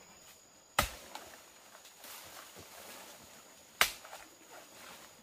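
Two sharp chopping blows, about three seconds apart, with quieter knocks and rustling between them. A steady high-pitched insect tone runs underneath.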